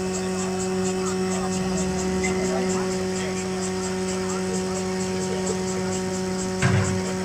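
Steady electric machine hum with a faint, fast, regular ticking over it, and one short knock near the end.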